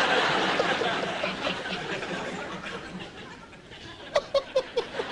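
Breathy laughter that fades over a few seconds, then a quick run of short laughs near the end.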